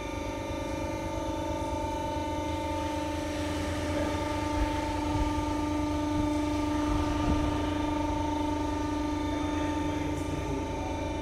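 Steady electric hum of a lift platform's drive, with added mechanical noise and a few light knocks in the middle as the roller-conveyor deck rises out of its pit.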